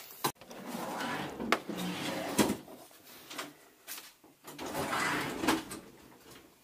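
Drawers and cabinet doors being opened and shut while someone rummages through them: several sharp knocks among stretches of rustling and clatter.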